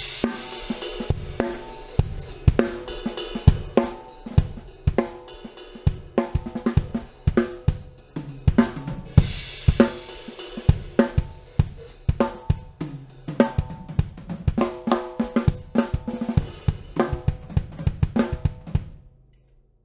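Music built on a full drum kit, with kick, snare, hi-hat and cymbals in a steady beat over sustained pitched tones. It fades out near the end.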